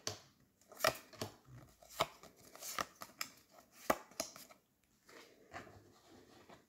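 Yu-Gi-Oh! trading cards being flicked off a hand-held stack and laid down on a tabletop: quiet, irregular card snaps and taps about once a second, with light rustling between them.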